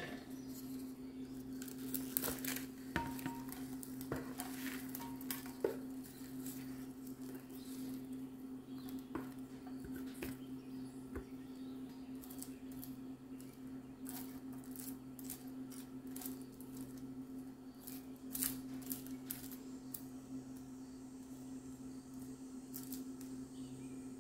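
Caramel-coated popcorn being pushed and spread in a glass baking dish with a spatula: scattered clicks, scrapes and taps of the spatula and sticky kernels against the glass, over a steady low hum.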